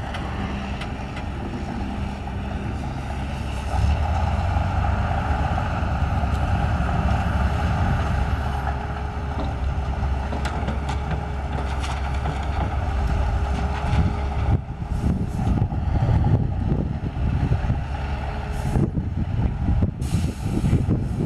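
Diesel engines of a Tatra dump truck and a Caterpillar M316C wheeled excavator running while the excavator loads soil into the truck. The engine note gets louder about four seconds in, and there are a few short knocks midway. Wind buffets the microphone in the last third.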